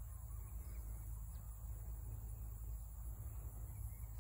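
Quiet outdoor field ambience: a low rumble of wind on the microphone, with a faint steady high insect hum and a few faint bird chirps.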